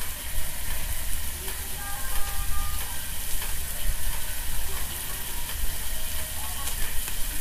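Eggplant slices and sausages sizzling on a tabletop hot plate, with a steady crackle of frying.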